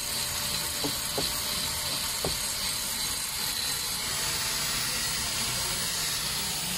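Steady machine hiss with a few faint clicks about one and two seconds in.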